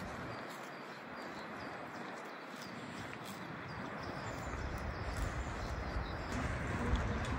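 Outdoor pasture ambience: a steady hiss with faint, short, high chirps or clinks. A low rumble comes in about halfway through and grows toward the end.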